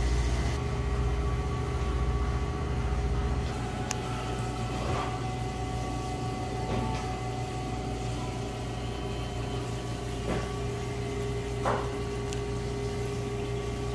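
Steady hum of running machinery, holding several even tones over a low rumble that eases a few seconds in, with a few faint short clicks.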